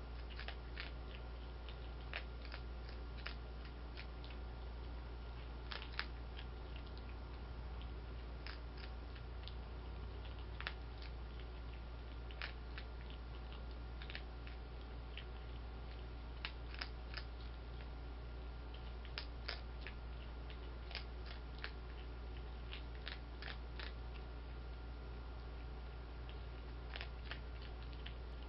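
Skunk crunching dry cat food kibble: irregular sharp crunches, often one to three a second with short gaps, over a steady low hum.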